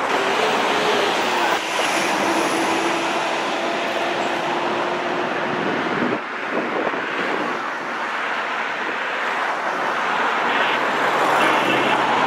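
Freight train rolling by, with wheel-on-rail noise and a steady tone over the first five seconds. After a cut about six seconds in, a CSX EMD GP40-2 diesel locomotive running as it approaches at the head of a hopper train.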